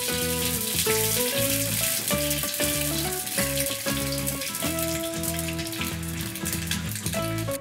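Rice paper sizzling in a hot pan, a steady crackling hiss as it puffs up and turns crisp, under background guitar music.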